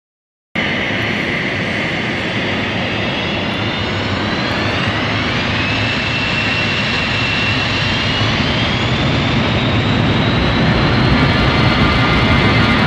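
Avro RJ85's four Honeywell LF507 turbofans spooling up for take-off. A high-pitched whine rises between about four and seven seconds in and then holds, while the overall sound grows slowly louder and a buzzsaw tone builds toward the end. The sound cuts in abruptly about half a second in.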